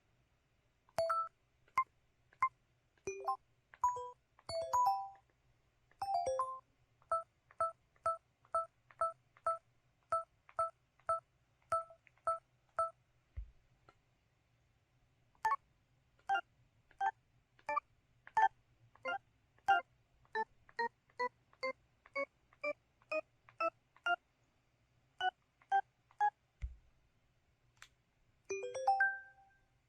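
Built-in system beeps of an LG-T390K Wine 3G mobile phone: a few short beeps of different pitches, then a run of identical two-note beeps about twice a second, then a run of beeps stepping up in pitch, with a short jingle near the end.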